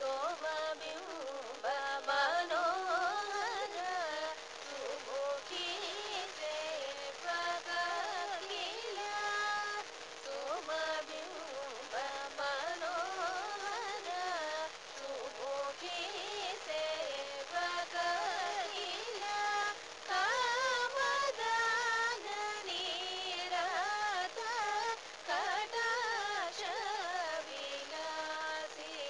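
Carnatic vocal singing: a singer's ornamented melodic phrases with sliding, oscillating notes over a steady drone.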